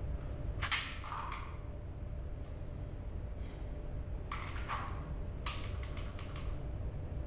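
Pistol shots: a single sharp shot about a second in, then two quick strings of several shots in the second half.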